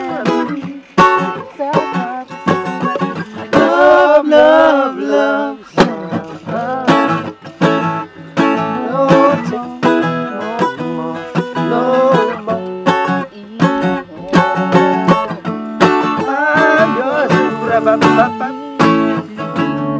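Acoustic guitar played solo, a run of picked single notes and chords.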